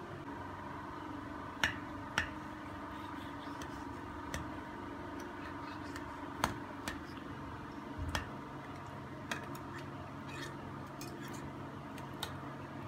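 Metal fork clinking and scraping against a glass baking dish as it digs into baked pasta: irregular sharp clicks over a steady background hum.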